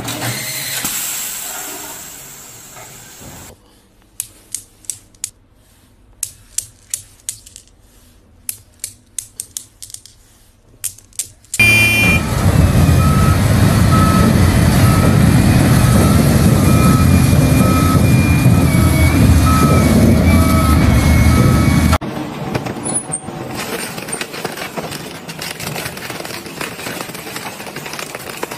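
Wheel loader's diesel engine running loud, with a back-up alarm beeping about once a second. Before it comes a run of sharp irregular clicks, and after it a steady grinding noise from an industrial shredder.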